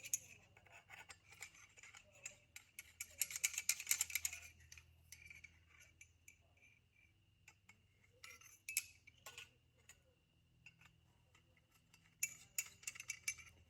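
Lightweight camp gear being handled: scratchy rattles and light clicks in three spells, the busiest in the first four seconds.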